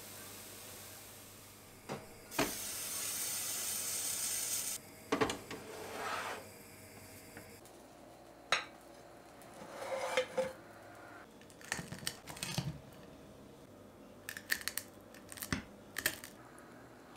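Kitchenware clatter: a frying pan knocking and scraping as a pizza is slid out onto a ceramic plate, then a table knife tapping and scraping against the plate as it cuts. About two seconds in, a steady hiss starts and lasts about two seconds.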